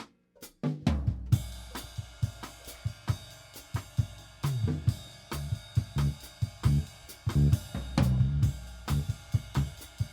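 Background music with a drum-kit beat and a bass line. It opens with a few separate drum hits before the full beat comes in about a second in.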